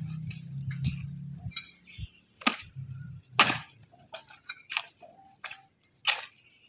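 A low steady hum that stops about a second and a half in, followed by a string of sharp clicks and knocks of hard objects at uneven intervals.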